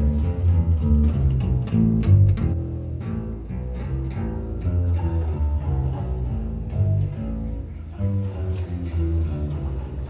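Balalaika contrabass being plucked, playing a continuous run of deep bass notes, several a second.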